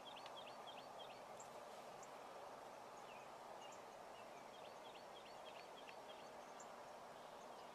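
Faint field ambience: scattered short, high bird chirps, several a second, over a steady soft hiss.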